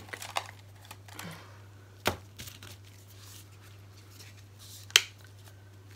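Sharp taps and light rustling as craft supplies are handled on a table while a wooden stir stick is fetched; the two loudest taps come about two and five seconds in.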